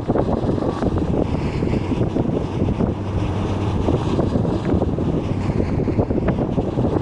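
Bus running at a steady pace: a continuous low rumble of engine and road noise with a few brief clicks.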